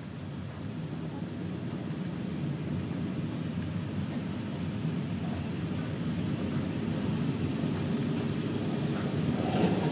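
Steady road noise inside a moving car on a wet highway: the low rumble of tyres on rain-soaked pavement and the engine, slowly getting louder.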